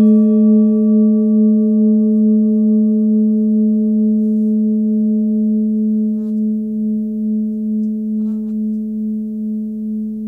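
Hand-forged Nepalese singing bowl, 18.5 cm, ringing with its fundamental near 213 Hz (G#/A). The tone wavers in a slow beat and fades gradually; its higher overtones die away within the first few seconds, leaving the low hum.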